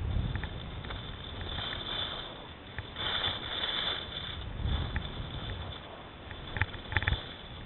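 Skis sliding and scraping over packed snow on a downhill run, with wind rumbling on the microphone; a louder scrape about three seconds in and a few sharp clicks near the end.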